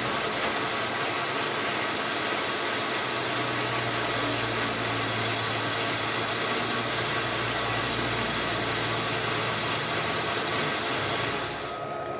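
Manual lathe running with a heavy metal roller spinning in its chuck: a steady mechanical hum and whir. It drops away near the end as the lathe is switched off.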